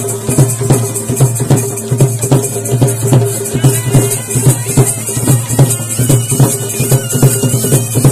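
Loud traditional percussion music: drums beating a fast, steady rhythm with a rattling shaker, over a held note.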